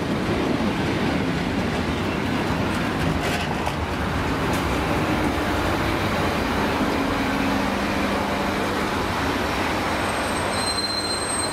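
Electric multiple-unit passenger train rolling slowly along a platform as it pulls in to stop, with a steady rumble of wheels and running gear. A low hum joins about seven seconds in, and a thin high squeal of the brakes starts near the end.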